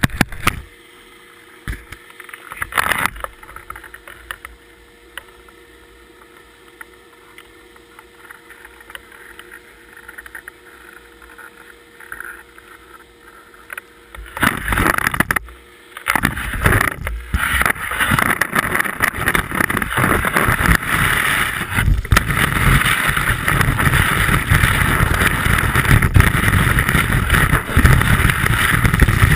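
Skis on snow, heard from a camera on the ski tip: a few short knocks and shuffles while standing still, then, about halfway through, a loud, continuous hissing scrape of the skis running downhill through the snow.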